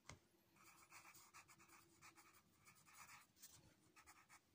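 Faint scratching of a pencil writing on paper in short, irregular strokes, with one light tap near the start.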